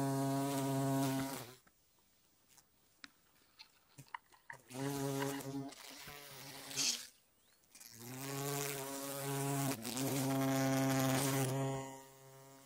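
A grounded bumblebee buzzing its wings close to the microphone in three bursts, about a second and a half, then three seconds, then four, with short quiet gaps between.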